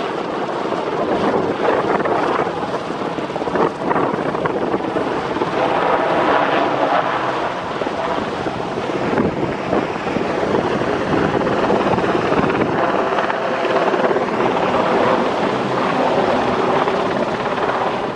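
Westland Sea King helicopter flying past: steady, continuous rotor and twin turboshaft engine noise, with a faint whine running through it.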